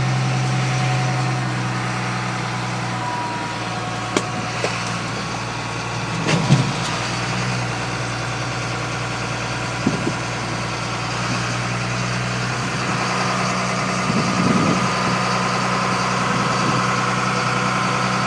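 Vehicle engine running steadily at a low hum, with a few short knocks along the way.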